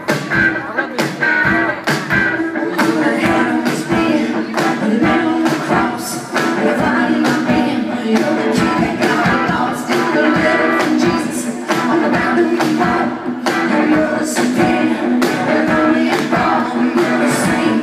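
Live band music in a hall: guitar strumming, drums keeping a steady beat, and singing, heard from among the audience.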